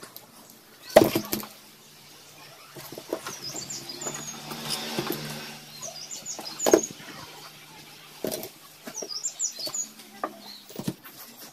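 Metal engine parts (ball bearings, a timing chain, clutch plates) being handled and set down on a cardboard-covered surface: several sharp clinks and knocks, the loudest about a second in. Birds chirp briefly in the background over a faint low hum.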